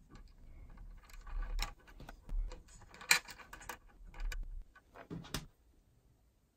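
Light, irregular metallic clicks and taps of small bolts and fittings being handled on an aluminium CNC carriage plate, with a sharper click about three seconds in and a quick pair of clicks a little after five seconds.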